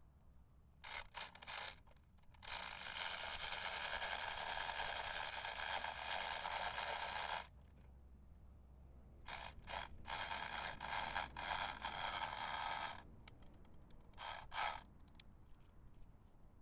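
Long stretches of scraping and rustling as the tree's root ball, wrapped in black plastic, is handled in the planting hole: a few short bursts, a steady stretch of about five seconds, a pause, another of about four seconds, and a last brief burst near the end.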